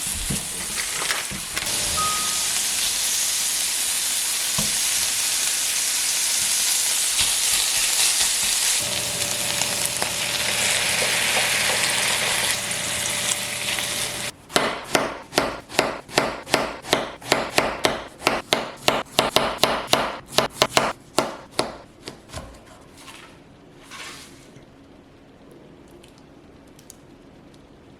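Food sizzling steadily in a hot frying pan for about half the time, then a quick run of sharp knocks, about four a second, for several seconds before it goes quieter.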